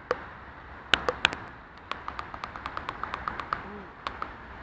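A mountain bike rolling off rocks into shallow water: a few sharp knocks, then a run of even light clicks at about five a second.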